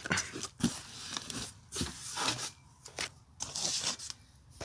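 Bubble wrap and a cardboard box being handled: irregular crinkling, crackling and scraping of the packaging.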